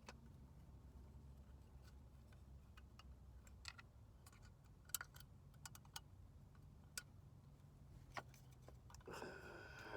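Faint, irregular small clicks of hand tools on metal as the distributor cap is tightened down, over a low steady hum. A brief higher tone rises near the end.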